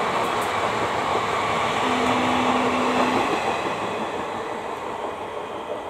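Passenger express train's coaches running past at speed: a steady rush of wheels on rail, loudest about three seconds in, then fading as the last coach goes by. A steady low tone sounds for about a second and a half near the middle.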